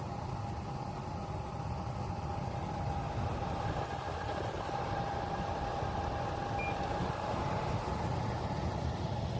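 Devola 12L/day dehumidifier running: a steady motor and fan hum with a constant whine.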